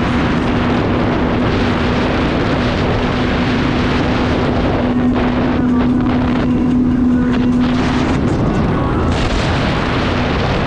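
Jet ski (personal watercraft) running at speed, a steady engine whine under heavy wind rushing on the microphone; the engine tone fades out about eight seconds in.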